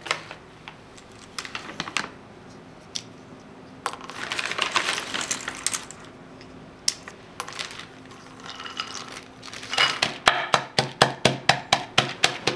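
Pistachios being shelled by hand, with shells clicking as they drop into a ceramic bowl and some rustling in between. Near the end comes a fast run of sharp knocks, about five or six a second, as a knife chops shelled pistachios inside a plastic bag on a wooden board.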